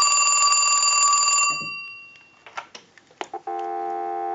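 Western Electric Trimline telephone's ringer bell ringing a fast trill for about a second and a half as the line analyzer sends a ring cycle, then fading out. A few clicks as the handset is lifted off the hook, then a steady North American dial tone from the earpiece from about three and a half seconds in.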